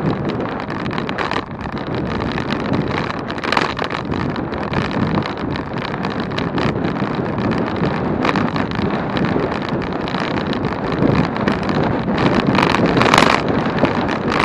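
Wind buffeting the microphone on a moving bicycle, a steady rush with road noise beneath, and a few louder gusts, the strongest near the end.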